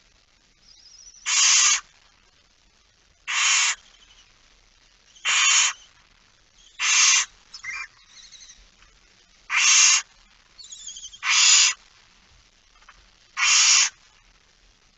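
Barn owl snoring calls: seven harsh hissing calls, each about half a second long, about every two seconds, with faint thin high twittering between some of them.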